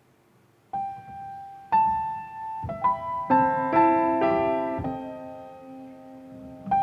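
Piano playing the opening of a piece. After a brief quiet, two single notes sound about a second apart. Fuller chords follow and build, then die away into a held ring, and the next phrase starts near the end.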